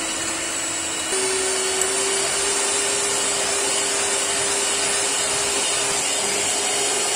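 Electric hand mixer running at medium-high speed, its beaters whisking egg whites into foam in a glass bowl. A steady motor whine whose pitch steps up slightly about a second in.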